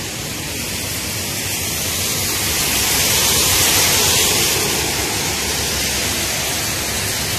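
Heavy rain, a steady hiss of rain falling on a flooded street, with a car's tyres swishing through the standing water that swell up about three seconds in and fade again.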